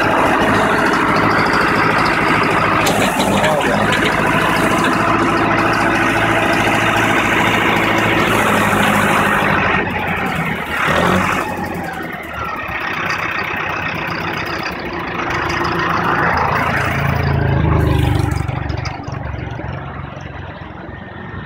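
Mahindra Arjun Novo 605 DI tractor's diesel engine running steadily while driving the front loader, its boom raised. The engine note eases about halfway through and swells again briefly near the end.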